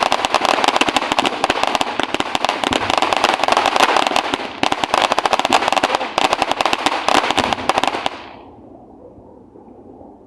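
A string of firecrackers going off in a dense, rapid run of sharp pops that stops abruptly about eight seconds in.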